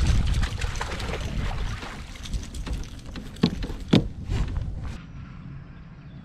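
A bass splashing and thrashing in a landing net alongside a kayak, loudest in the first two seconds, with wind rumbling on the microphone. Two sharp knocks follow, about three and a half and four seconds in, as the net is lifted into the kayak.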